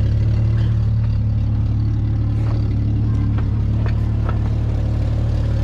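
An engine idling steadily with a constant low hum, with a few faint clicks and light metallic knocks.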